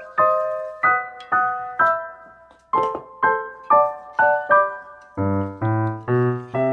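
Background piano music: a melody of separate struck notes, about two a second, joined by lower notes about five seconds in.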